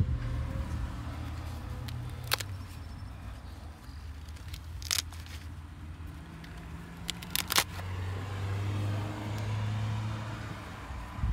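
A handful of short, sharp knocks and scuffs from worn-out Merrell Chameleon hiking shoes on concrete, the loudest a quick double knock about seven and a half seconds in, over a steady low hum.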